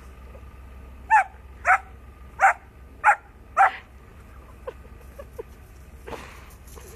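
Puppy barking five times in quick succession, a little over half a second apart.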